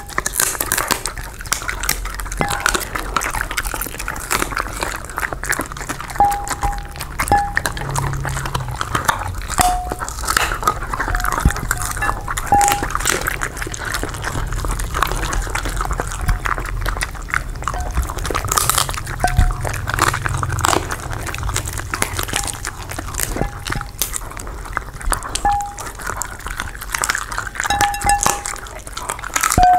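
Two dogs chewing and licking pieces of tamarind-stir-fried quail balut off plates close to a microphone: a steady run of quick clicks, smacks and crunches.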